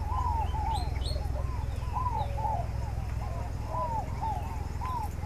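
Birds calling: many short rising-and-falling notes, several a second and overlapping, with a few higher chirps about a second in, over a steady low rumble.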